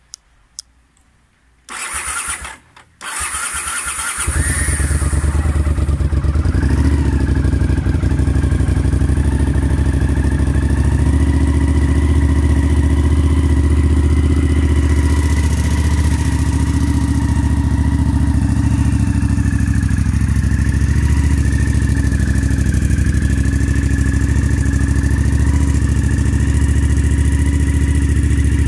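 Honda CX 500 V-twin being started: two short clicks, then the electric starter cranks in two short bursts with a brief gap. The engine catches about four seconds in and settles into a steady idle.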